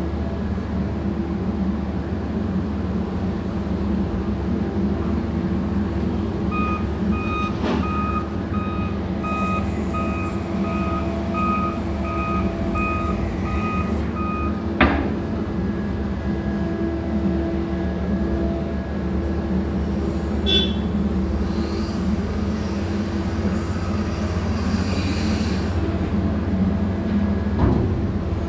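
Steady low hum of heavy port machinery. For about seven seconds in the middle, a warning beeper sounds about twice a second. A single sharp clank follows soon after the beeping stops.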